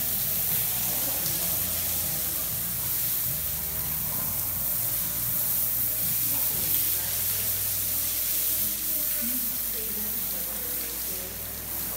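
Hose spray nozzle hissing steadily as a jet of water is sprayed onto an elephant's wet hide.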